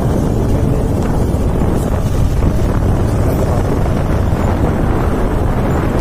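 Wind buffeting the microphone: a loud, steady low rushing noise with no distinct events.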